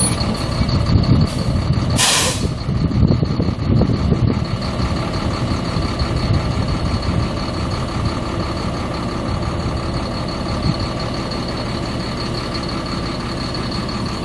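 Caterpillar C7 inline-six turbo diesel of a 2008 Ford F750 truck running, uneven for the first few seconds and then settling into a steady idle. A short burst of air hiss comes about two seconds in.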